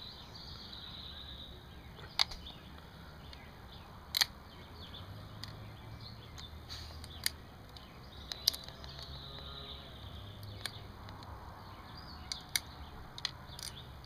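A boiled crayfish claw's shell being cracked and picked apart by fingers: about eight sharp, short cracks come at irregular intervals over a faint steady background.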